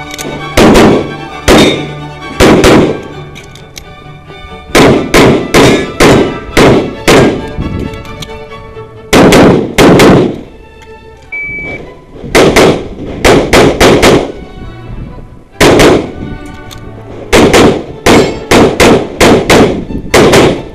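ADC Master Elite competition pistol firing in fast strings of two to six shots, with pauses of a second or two between strings while the shooter moves between shooting positions. Background music plays underneath.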